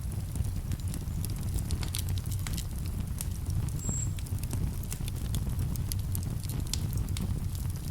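Wood campfire crackling with many irregular sharp pops, over a steady low rush of a calm river. A brief high whistle sounds about four seconds in.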